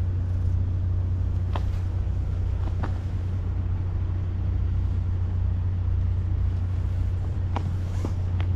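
Steady low hum or rumble, with a few short, sharp clicks: two in the first three seconds and a cluster of three near the end.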